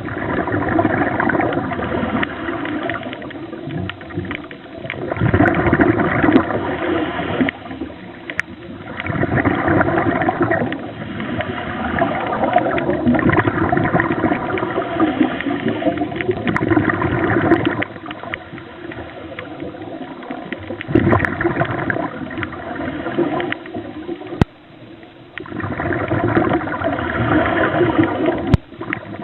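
Underwater audio of a diver breathing through a scuba regulator: bursts of gurgling exhaled bubbles every few seconds, with quieter gaps between breaths.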